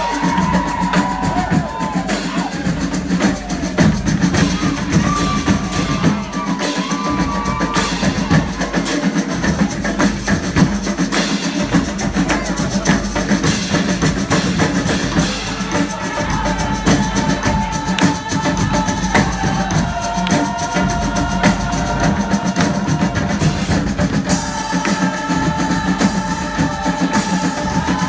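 Live street-band music: a drum section keeps up a steady beat while horns play held notes, several in harmony from about halfway through.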